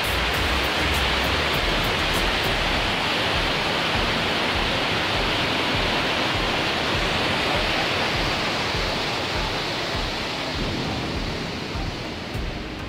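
Steady rush of the Iguazú Falls, heavy water pouring down close by. It eases off a little near the end.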